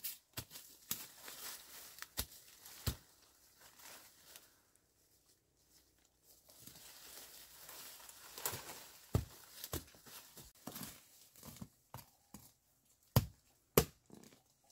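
Dry bamboo leaf litter crunching and rustling under footsteps and hands, with scattered light knocks. Two sharp knocks near the end, the loudest sounds here, from a digging tool striking the ground.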